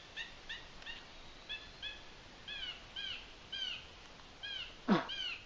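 A bird calling over and over in short, downward-slurred notes, roughly two a second, spacing out a little as it goes. Near the end, one loud, quick falling sweep from high to low.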